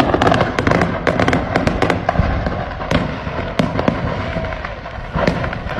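Fireworks going off in rapid succession: a dense, irregular string of sharp cracks and pops over continuous crackling.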